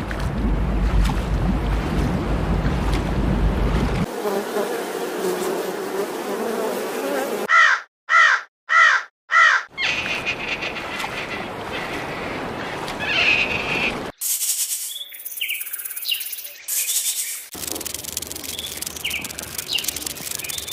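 A series of short animal-sound clips cut one after another. About eight seconds in come four loud calls in quick succession, and fainter chirps and hissy noise fill the other segments.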